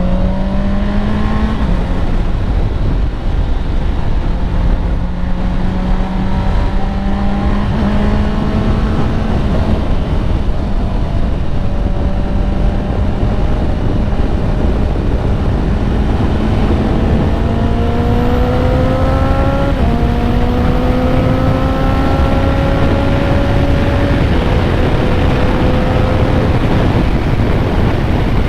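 Honda CBR650R inline-four with an Akrapovic exhaust and dB killer fitted, running under way, its pitch climbing slowly and dropping back a few times at gear changes. Heard through a helmet-mounted lavalier microphone with heavy wind noise over it.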